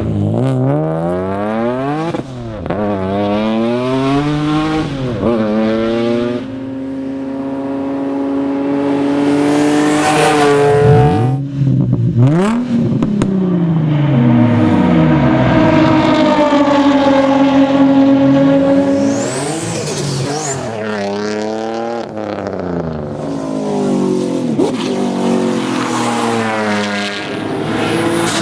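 Nissan 350Z / Infiniti G35 3.5-litre V6 through an aftermarket performance exhaust, revving and accelerating hard. Its pitch climbs, drops back sharply and climbs again several times as it shifts or lifts, with a few longer steady pulls.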